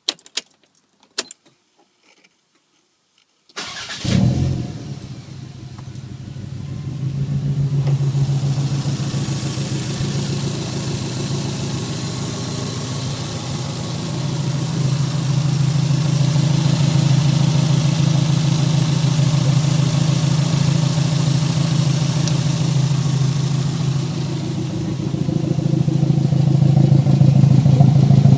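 A few clicks, then a Toyota MR2 turbo's 3S-GTE four-cylinder engine cranks and fires about four seconds in and settles into a steady idle. It is misfiring, with popping from the exhaust at idle.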